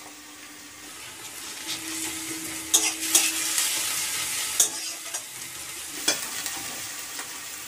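Chopped onion and garlic paste sizzling in hot oil in a kadai, stirred with a spatula that scrapes against the pan a few times. The sizzle grows louder about two seconds in.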